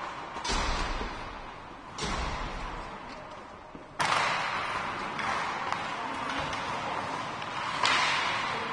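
Four sudden slams and thuds, about half a second in, at two seconds, at four seconds and near the end, each echoing away slowly in a large ice hockey arena: play hitting the rink boards.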